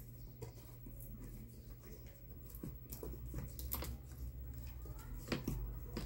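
Faint, scattered clicks and light handling noises as the fan's wiring and parts are moved about by hand, over a low steady hum.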